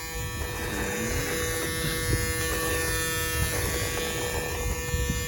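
A steady electric buzz with humming tones that hold one pitch, under a haze of hiss that swells about half a second in and eases near the end.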